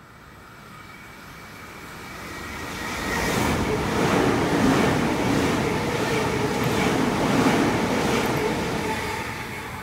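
Sydney Trains double-deck electric suburban train passing through a station at speed: a rush of wheel and motor noise that builds, holds with a regular clatter from the wheels for about five seconds, then fades as it recedes.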